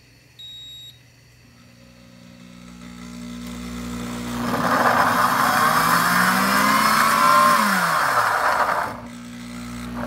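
Pampered Chef heated blender beeps once as its heated-puree program starts, then its motor spins up over a few seconds and runs loudly, chopping carrots, zucchini and garlic in water. Near the end the motor's pitch falls and it stops for a moment, then starts again.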